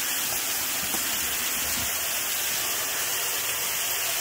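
Steady hiss and rush of a waterfall's falling water, even and unbroken.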